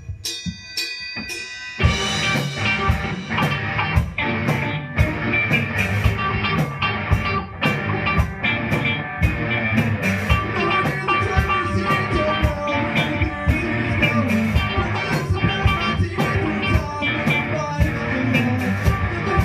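Live rock band starting a song: a short opening of sharp hits and ringing notes, then about two seconds in the full band comes in, drum kit and electric guitars playing with regular drum hits.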